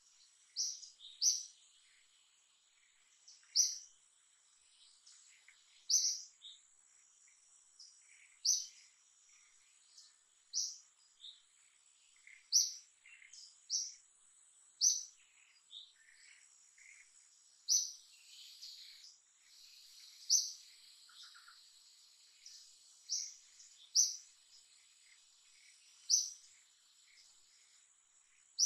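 A bird giving short, high chirps every one to three seconds, over a steady high insect drone.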